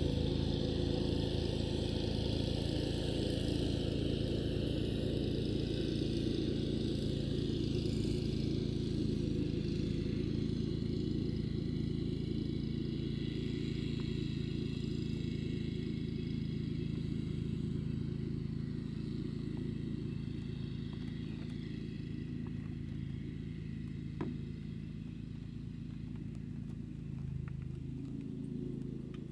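A steady, low, engine-like mechanical hum, growing slowly quieter. A high hiss fades out over the first half, and there is one faint tick near the end.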